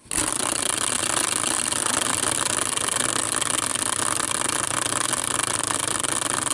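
Hand-spun prize wheel, a caster wheel on a metal bracket, set going with a hard spin and whirring steadily on its axle.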